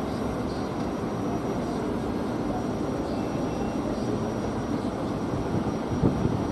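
Southeastern electric multiple-unit train running slowly into a terminus platform, with a steady low rumble and hum.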